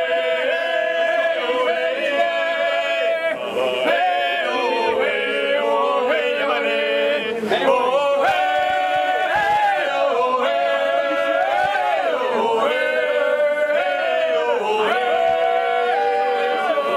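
Male vocal quartet singing a cappella in close harmony, holding chords that shift every second or two.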